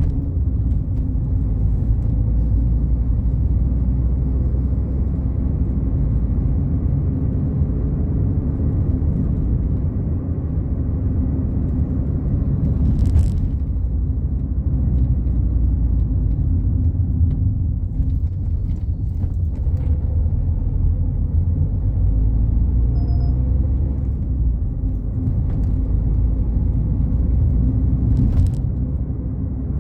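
Fiat Palio Fire cruising on the highway: a steady low rumble of engine and tyre noise, as heard riding in the car. Two brief clicks stand out, one midway and one near the end.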